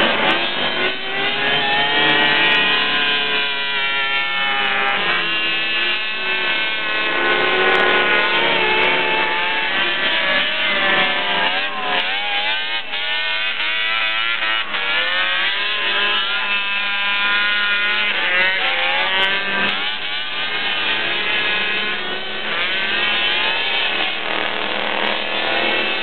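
Several Attex six-wheeled 6x6 ATVs racing on a dirt track, their small engines revving up and down. Several engine notes overlap the whole time, with the pitch rising and falling as the machines accelerate and slow through the turns.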